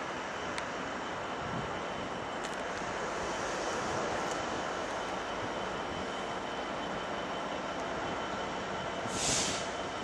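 Freightliner Class 66 diesel locomotive with its two-stroke EMD engine running as it slowly approaches, hauling a train of wagons. There is a short hiss about nine seconds in.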